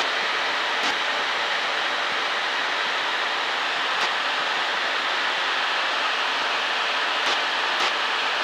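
Steady cabin noise of a single-engine Cessna in flight: engine, propeller and airflow blend into an even rush, with a few faint clicks.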